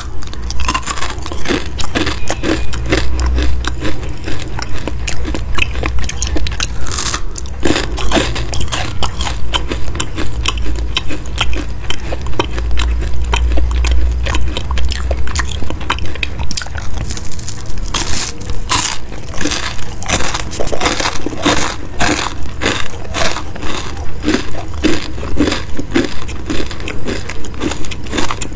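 Close-miked crunchy chewing of crispy chicken cutlets, a steady chewing rhythm of about two chews a second with loud crackling crunches where fresh bites are taken.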